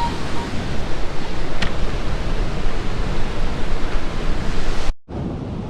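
Wind on the microphone mixed with rough surf: a loud, steady rush. It cuts out briefly near the end, then carries on quieter.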